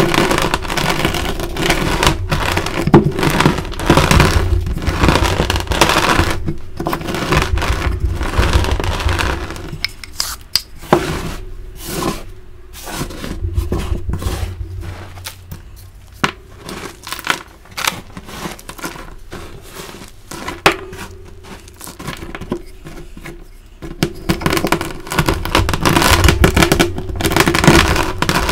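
Wooden rolling pin crushing pieces of dyed gym chalk: a dense, gritty crunching. About a third of the way through it gives way to quieter scraping with scattered clicks as a hand sweeps the chalk powder. Near the end the rolling crunch comes back.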